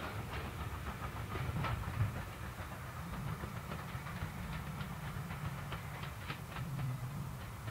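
Steam train hauled by a BR Standard Class 4MT 2-6-0 locomotive running away into the distance: a steady low rumble with scattered faint clicks, slowly fading.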